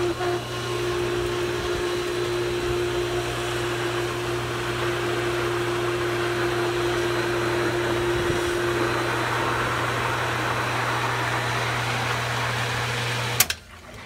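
Pool pump's electric motor running with a steady hum and a rushing whir, then switched off with a click near the end and stopping at once.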